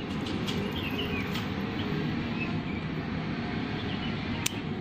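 Steady low background rumble with faint bird chirps, and a single sharp click near the end.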